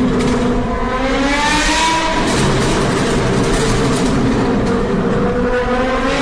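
Engine with a very loud aftermarket exhaust revving: the pitch climbs from about half a second in to a peak near two seconds, drops back, and climbs again near the end.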